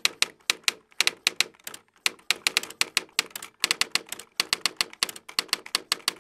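Typewriter keys clacking in quick, uneven runs of strikes with short pauses between, stopping abruptly.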